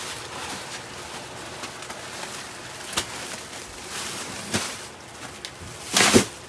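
Full plastic rubbish bags rustling as they are carried and set down, a few short crinkles with the loudest about six seconds in, over a steady low background hiss.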